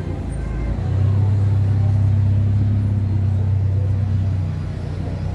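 Low, steady engine hum of a motor vehicle, swelling about a second in and easing slightly near the end.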